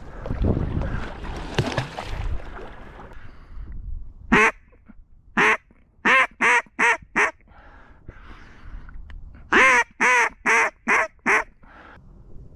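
Water sloshing and splashing around the legs for the first few seconds, then a mallard duck call blown in loud nasal quacks: two single quacks, a quick run of four, and after a pause a run of six, the hen-mallard calling used to pull ducks into the decoys.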